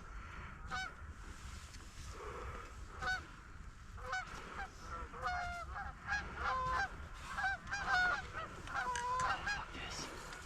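Geese honking as a flock comes in. The calls are scattered at first, then come thicker and overlapping from about four seconds in.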